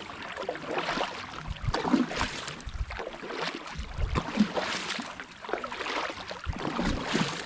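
Double-bladed kayak paddle strokes swishing and splashing through the water on alternating sides, about one stroke a second.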